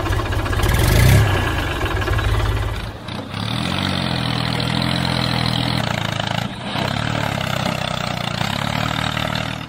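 Tractor engine running; about three seconds in the sound dips and settles into a steady, even hum.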